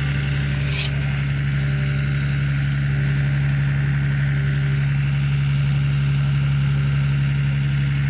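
A machine running steadily, giving an unchanging low drone with a hissy wash over it.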